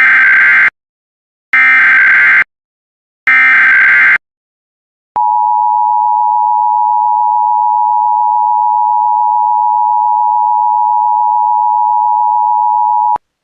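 Emergency Alert System header: three roughly one-second bursts of warbling SAME data tones, which encode the alert's type and area, then after a short pause the steady EAS attention-signal tone for about eight seconds, cutting off abruptly.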